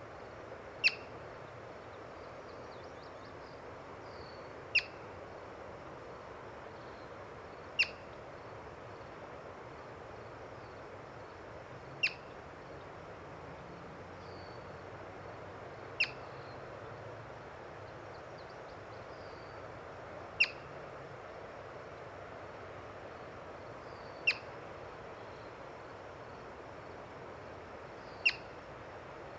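Yellow-bellied marmot giving its alarm call: a single sharp, high chirp repeated about every four seconds, eight in all.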